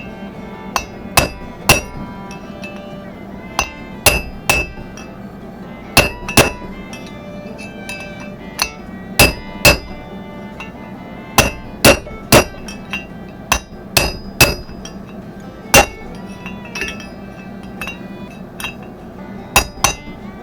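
Hammer blows knocking a wheel bearing race out of a 1992 Nissan pickup's front hub: sharp metal-on-metal strikes that ring, irregularly spaced and often in quick pairs.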